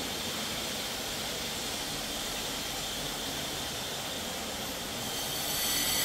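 Steady rushing noise with a hiss and no clear tone or rhythm, growing louder and brighter about five seconds in.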